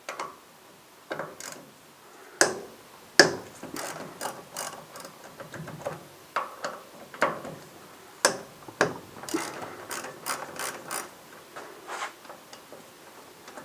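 Socket ratchet clicking in irregular short runs as the 8 mm hex bolts holding a Ducati Monster 1100's front brake caliper are loosened, with a couple of louder metallic clicks about two and three seconds in.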